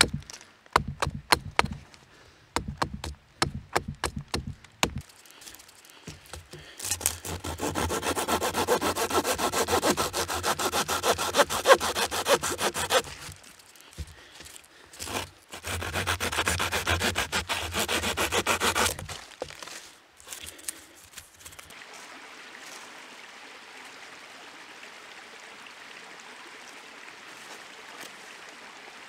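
A blade chopping into a wooden stick on a log: a run of sharp knocks. Then a toothed blade sawing through the stick in two long bouts of even strokes, each about six seconds. A steady faint hiss follows near the end.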